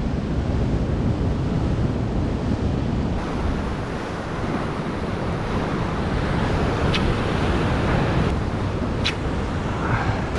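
Ocean surf breaking and washing over coastal rocks, with wind buffeting the microphone. Twice near the end a brief sharp sound cuts through.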